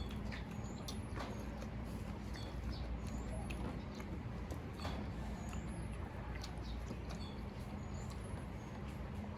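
Close-up eating sounds: chewing, lip smacks and small wet mouth clicks and squeaks, scattered irregularly over a steady low hum.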